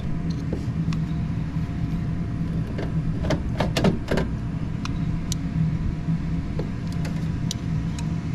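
Steady low machine hum, with a run of sharp metallic clicks, thickest about three to four seconds in, as wire connectors are worked off an air conditioner's capacitor with a hand tool.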